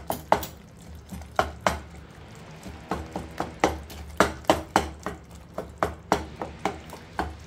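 Spatula knocking and scraping against the bottom of an aluminium pot as whole tomatoes are mashed into simmering minced meat: repeated sharp knocks, a few a second, coming quicker in the second half.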